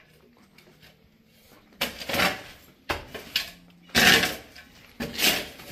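Plumbing pipe being handled: four rough scraping knocks about a second apart, each starting sharply and dying away over half a second.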